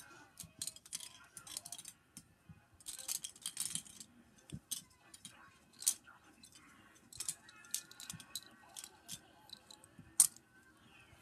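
Small toys being handled: irregular light clicks and rattles, with a sharper knock about ten seconds in.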